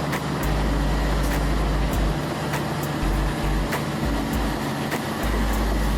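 Komatsu D475A-8 large bulldozer's diesel engine running, with a low rumble that comes and goes and sharp clanks about every half second.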